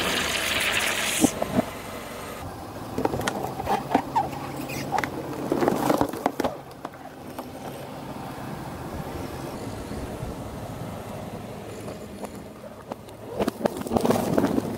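A car tyre slowly crushing a plastic bottle and then a cardboard box: a hissing spray of liquid at the start, then runs of sharp creaks, crackles and pops as the plastic gives way, quieter scattered clicks, and a fresh burst of cardboard crackling near the end.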